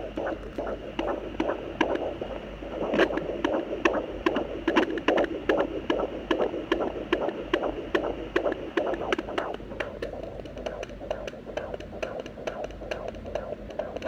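Fetal heartbeat picked up by a handheld Facelake fetal Doppler and played through its loudspeaker: a fast, even whooshing pulse over a steady hiss.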